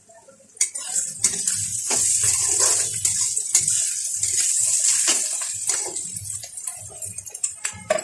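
Chopped onions and green chillies frying in a wok, sizzling as a spatula stirs and scrapes them against the pan; the sizzling starts about half a second in, with clicks of the spatula through it and a sharp knock near the end.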